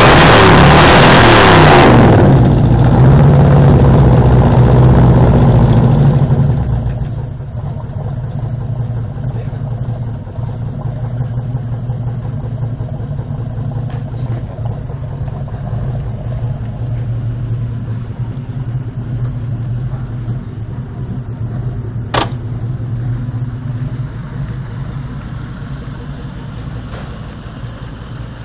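Ford Maverick GT's V8 engine revved hard, then easing off after about six seconds and settling into a steady, rumbling idle. A single sharp click sounds about two-thirds of the way through.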